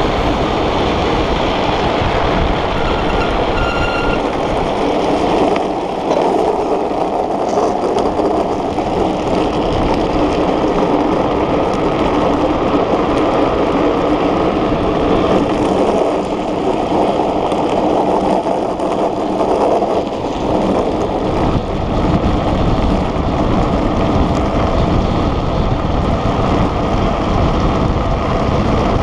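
Steady, loud rushing of wind over an on-board camera microphone, mixed with the rumble of a gravity speed trike's wheels rolling fast over rough asphalt.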